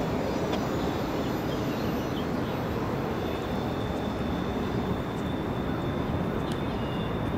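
Steady low rumble of a large passing vehicle, with a faint thin high tone coming in about three seconds in.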